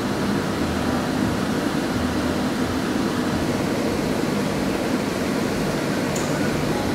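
Steady background hiss with a faint low hum, like room ventilation or air-handling noise. The soldering iron heating the thread makes no sound that stands out above it.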